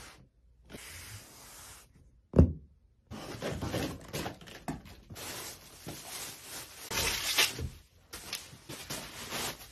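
A cardboard box being opened and unpacked: a single sharp thud about two seconds in, then scissors cutting through the packing tape and the rustling and scraping of cardboard and plastic wrap as the parts are lifted out.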